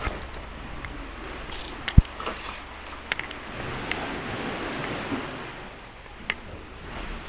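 Sea surf washing inside a rocky sea cave, a steady rushing wash, with scattered clicks and knocks of footsteps on loose stones and one sharp thump about two seconds in.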